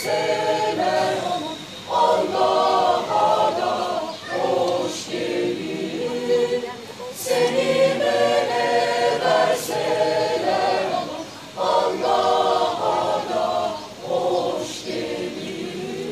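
Mixed polyphonic choir of men and women singing a cappella, in short phrases with brief pauses between them.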